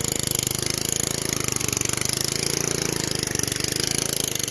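Small rider lawn mower engine running steadily with a fast, even putter.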